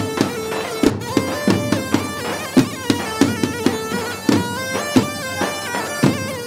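Lebanese zaffe wedding band: several large double-headed tabl drums beaten in a fast, driving rhythm under a keyboard melody of long held notes that step up and down.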